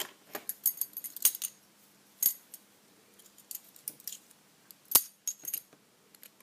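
Steel padlock being handled: scattered sharp metallic clicks and clinks, the loudest about five seconds in.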